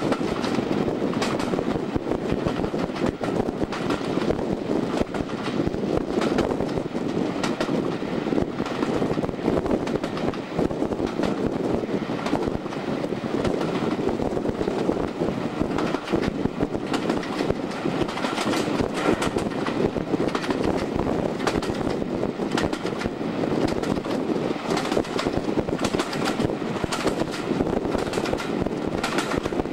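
Diesel-hauled passenger train running, heard from an open carriage window: a steady rush of wind and wheels on the rails, with faint rattles and knocks throughout.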